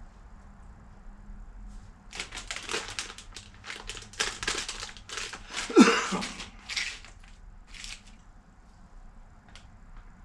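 Plastic cereal bag crinkling and rustling as it is handled and rummaged in, in a dense run of crackles for about five seconds. Near the middle comes a short falling-pitched vocal sound, the loudest moment.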